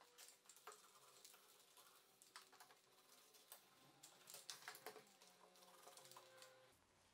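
Faint, irregular light clicks and taps, scattered through otherwise near silence.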